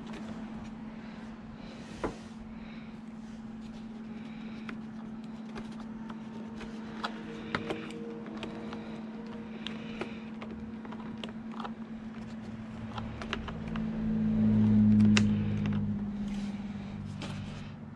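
Scattered light clicks and taps from model-airplane parts being handled while a wing is pushed into the fuselage and its wires worked into place, over a steady low hum. A low rumble swells and fades about three quarters of the way through.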